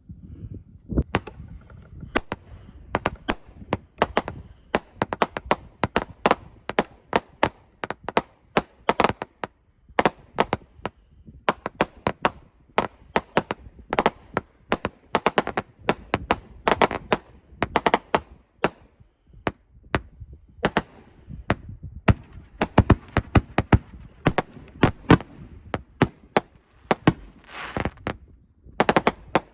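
Consumer fireworks going off, firework cakes and canister shells: a long run of sharp bangs and pops at an uneven pace, with a short lull past the middle, the loudest bangs a little later and a quick cluster near the end.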